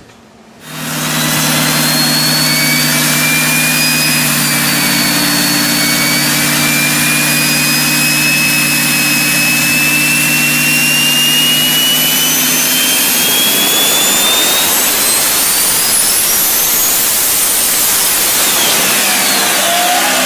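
Turbocharged diesel pickup engine at full load on a chassis dyno. The turbocharger whine climbs steadily in pitch for about fifteen seconds, then peaks and falls away near the end as the engine lets go in a cloud of white smoke.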